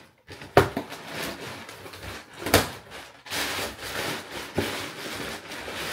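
A cardboard shipping box being opened by hand: its flaps are pulled back with a few sharp knocks and snaps, the loudest about two and a half seconds in. From about halfway there is steady rustling of cardboard and paper packing.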